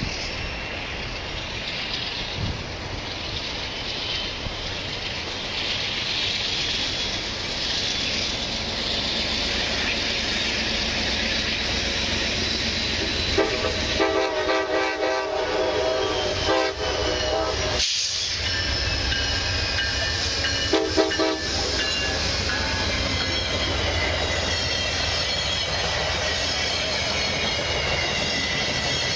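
VIA Rail passenger train approaching and passing, with a steady rumble of wheels on the rails and a thin high whine. Its horn sounds one long blast of about four seconds, then a short blast a few seconds later.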